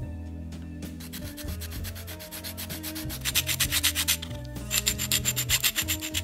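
Sandpaper rasping in rapid, even strokes against hardened white filler on a die-cast toy car body. It starts about a second in, grows louder about halfway, and briefly pauses before carrying on.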